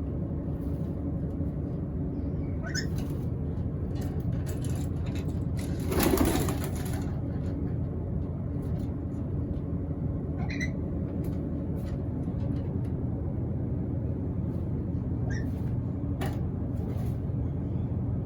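A black-capped lory giving short, high squeaks every few seconds over a steady low rumble. About six seconds in there is a louder rustling burst lasting about a second.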